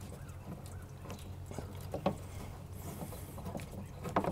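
Faint clicks and small scrapes of a screwdriver and hands working a hose and hose clamp off a tractor's fuel valve, over a low steady hum.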